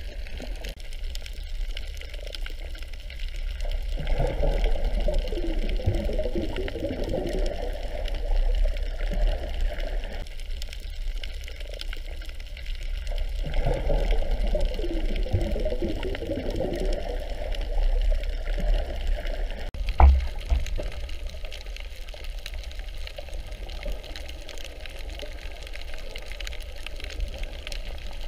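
Water noise heard through an underwater camera: a steady low rumble, with two louder spells of water noise, each about six seconds long, and a single sharp knock about twenty seconds in.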